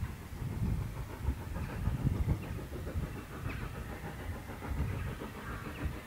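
Steam locomotive, an LSWR T3 4-4-0, working towards the crossing in the distance, heard as an uneven low rumble.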